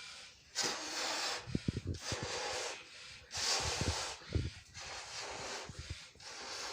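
A person blowing up a balloon: about five hard breaths blown into it, one after another, with short pauses for air between them.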